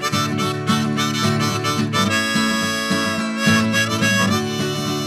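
Background music: a harmonica playing over guitar, holding one long note in the middle.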